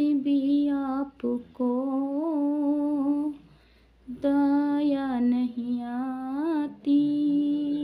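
A woman's unaccompanied voice singing a slow, wordless tune in long held, wavering notes, with a short pause about three seconds in.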